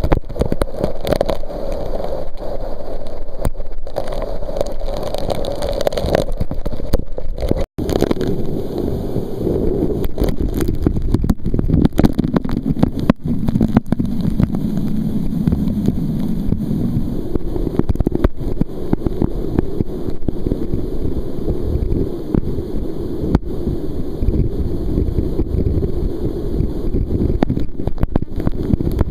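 Canyon waterfall pouring and splashing straight onto the camera and its microphone: a loud, steady rushing with a split-second dropout about eight seconds in.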